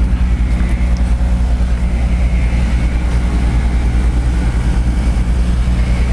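Steady low rumble with a deep hum running under it.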